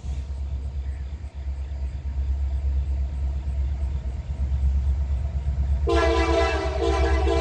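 Approaching diesel freight locomotives: a low rumble that grows steadily louder, then the lead locomotive's air horn blows a loud multi-note chord starting about six seconds in, with short breaks.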